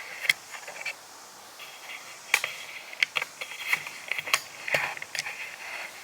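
Handling noise from a camera being picked up and repositioned: a run of sharp clicks and knocks, about seven, with scraping and rubbing between them.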